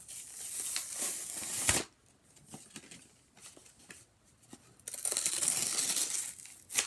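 Cardboard packaging of a Tech Deck fingerboard being torn open by hand: a long rip that ends in a sharp snap about two seconds in, then quiet rustling, then a second long rip near the end with another snap.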